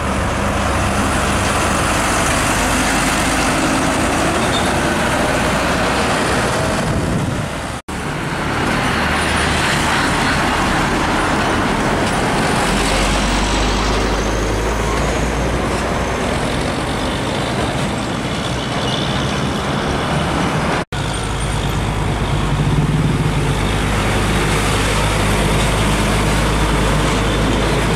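Heavy diesel container trucks passing close by, engines running under steady road and traffic noise. The sound cuts out briefly twice, and the engine drone changes with each new truck.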